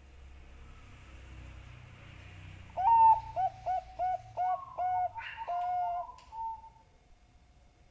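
Zebra dove (Bangkok-type perkutut) singing one cooing phrase about three seconds in: a run of short, quick coos, then a longer drawn-out final coo.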